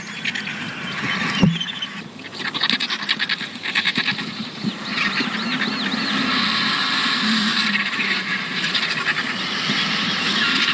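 Griffon vultures squabbling at a carcass: a rapid clattering for a few seconds, then harsh hissing with squealing, wavering calls. The adults are aggressive while they feed.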